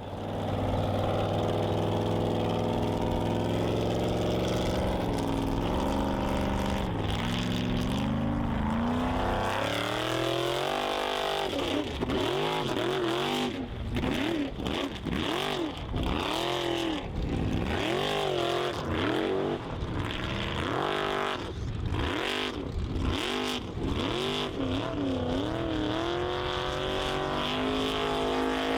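Engine of a Formula Offroad hill-climb 4x4 running hard. For the first ten seconds or so it holds fairly steady revs, stepping upward. After that it revs up and down over and over as the throttle is worked.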